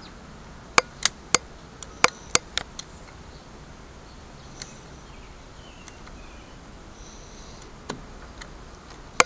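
Razor blade in a metal holder cutting into a wooden walking stick, giving a series of sharp clicks as it bites into the wood and slips out small chips: several in quick succession over the first few seconds, then a few spaced ones. It is the second cut of a diamond scale, coming in from the opposite side toward the scored line.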